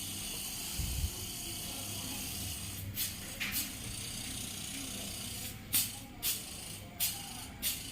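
Six short bursts of hiss in three pairs, a fraction of a second each, over a steady low hum.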